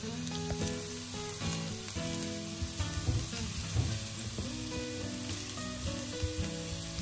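Minced garlic sizzling and crackling in hot olive oil in a non-stick wok, with a wooden spatula stirring it through the pan in the second half.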